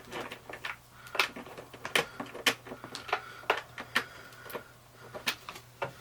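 Irregular sharp plastic clicks and taps, about two or three a second, from computer equipment and cables being handled and plugged in.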